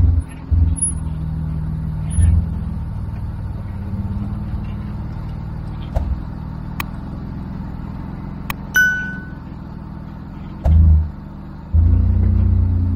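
Jeep Wrangler engine running at low revs as it crawls up rock ledges, with a few short low surges of power. A few sharp clicks and one short ringing ding come about six to nine seconds in.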